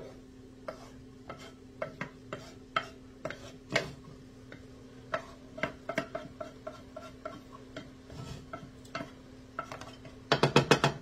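Wooden spatula scraping food out of a metal frying pan into a pot: irregular clicks and scrapes of wood on metal. Near the end there is a quick run of about six louder knocks.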